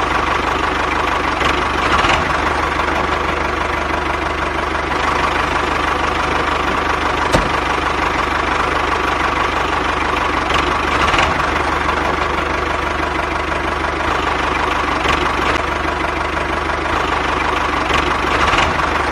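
Small engine of a homemade mini tractor running steadily with a low hum, a constant whine and a few faint clicks.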